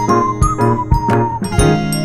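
Background music with a steady beat and a melody line over a bass line.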